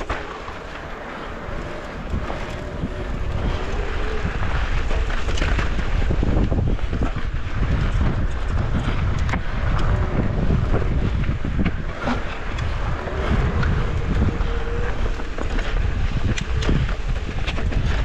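Wind buffeting the microphone during a mountain bike ride, over a low rumble of tyres rolling on a dirt trail, with frequent short knocks and rattles as the bike runs over rocks and roots.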